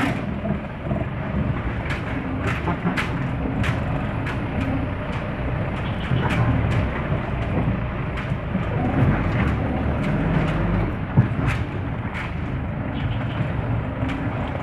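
Vehicle engine running low as it crawls over a rutted mud track, heard from inside the cab, with frequent irregular knocks and rattles from the body and suspension jolting over the ruts. One knock about 11 seconds in is louder than the rest.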